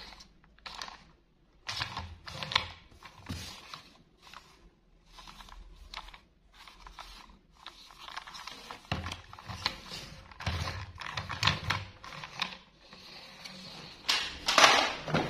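Plastic toy train engine handled in gloved hands: irregular clicks, taps and rubbing of hard plastic as it is turned over, with a louder burst of scraping and knocks near the end.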